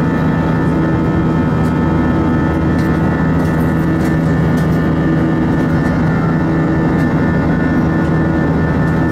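Airbus A320 cabin noise in flight: the steady drone of the jet engines and airflow, with fixed humming tones that hold even throughout.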